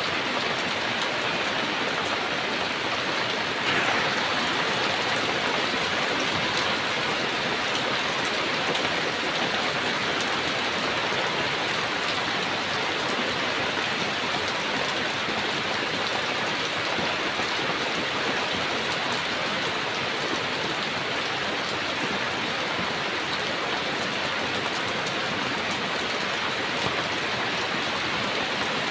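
Heavy rain falling steadily, a dense, even hiss of drops on surfaces, with a brief louder splash about four seconds in.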